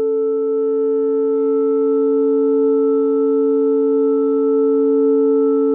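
Sustained electronic drone of two steady, nearly pure tones, with fainter higher tones slowly joining in about a second in.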